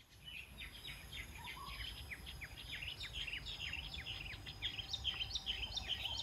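Many small birds chirping together, a dense chorus of short falling chirps, several a second, growing louder toward the end. A thin steady high tone and a low background rumble run underneath.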